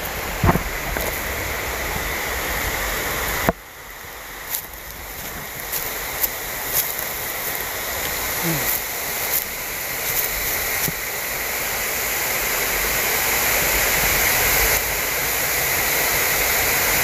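Rushing water of a waterfall, a steady hiss that grows gradually louder. Low wind rumble on the microphone drops away abruptly about three and a half seconds in, and a few light ticks come in the middle.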